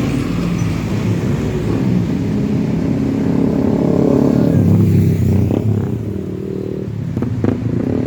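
Heavy vehicle engine drone, most likely a bus driving past, building to its loudest about five seconds in and then fading, with a few short knocks near the end.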